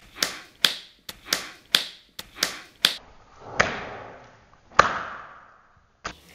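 Hand clapping: about eight sharp claps at a steady pace over the first three seconds, followed by two louder single hits, each with a longer fading tail.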